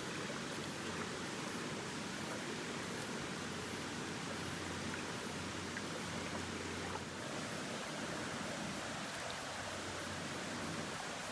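Running water of a bush stream, a steady even rush.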